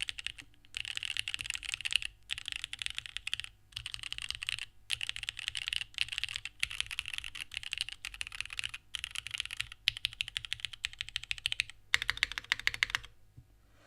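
Fast typing on a Singa Kohaku r2 gasket-mount keyboard with an aluminium plate, no foam, and unlubricated, filmed vintage West German Cherry MX Black linear switches. The keystrokes come in quick runs separated by brief pauses, and the typing stops a little before the end.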